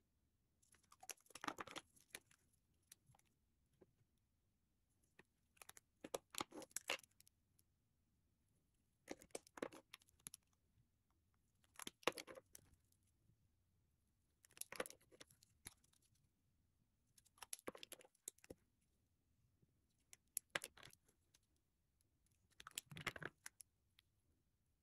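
Lipstick tubes being handled one after another: metal and plastic cases uncapped, capped and set down, giving short spells of clicks and rattles about every three seconds, with near silence between them.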